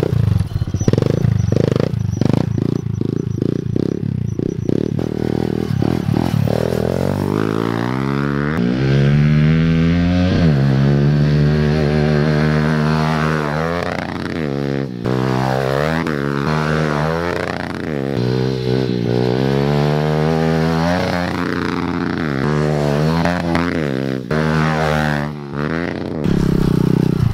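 Kawasaki KLX110 pit bike's small single-cylinder four-stroke engine being ridden hard. At first it gives a quick, uneven pulsing at low revs. Then it revs up and drops back again and again as the throttle is worked.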